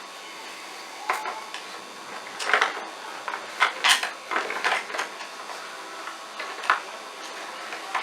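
Irregular knocks and scrapes of a tool working inside a vacuum cleaner's curved hand tube, clearing out the blockage that had stopped its suction.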